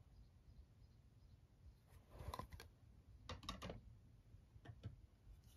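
Faint clicks and taps of hard plastic graded-card slabs being handled and set down, in a short cluster about two seconds in and again about three and a half seconds in, with a couple more near the end.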